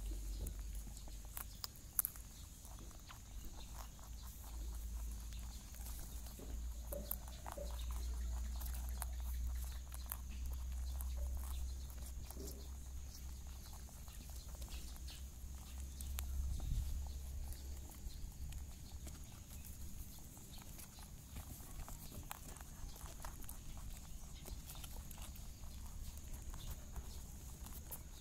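Faint scrabbling, rustling and small clicks of five-day-old rabbit kits squirming and suckling under their nursing doe, over a low rumble and a steady faint high hiss.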